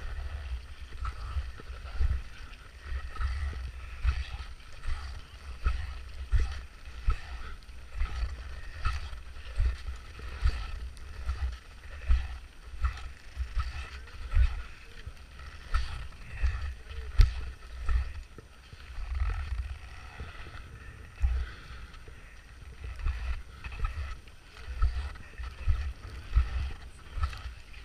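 Wind buffeting the microphone in gusts, with the crunch of boot footsteps in packed snow about once a second.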